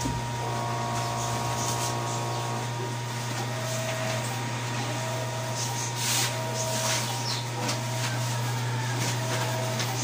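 Large-format sublimation inkjet printer running a test print: its motors whine in a cluster as printing starts, then a short whine comes about every second and a half as the print-head carriage makes its passes, over a steady low hum.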